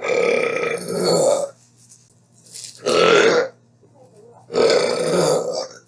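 A woman belching loudly three times: a long belch, a short one about three seconds in, then another long one.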